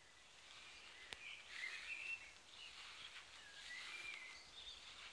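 Faint birdsong: scattered short chirps and whistles over a quiet steady outdoor background hiss.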